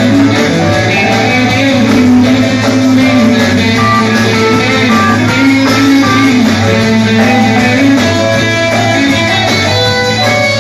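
Live rock band playing an instrumental passage: electric guitar picking a melodic line over a steady bass, with no vocals.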